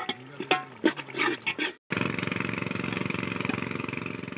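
A few clicks and a brief voice, then after a short break a boat's engine running steadily with a fast even beat, fading out near the end.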